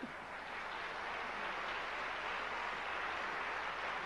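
Audience applauding: a steady, even clatter of many hands clapping.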